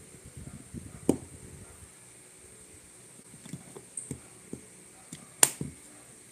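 Hard plastic clicks and knocks as camera batteries are pushed into the slots of a Telesin battery charging box, a sharp one about a second in and a run of small ones later. The loudest click comes near the end as the box's lid snaps shut.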